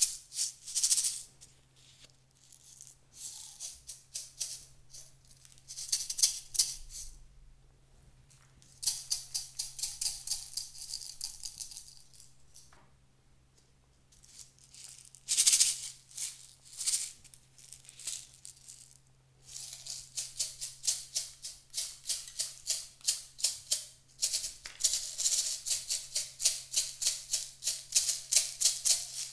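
Runs of fast, even rattling with short quiet gaps between them. The longest run comes near the end.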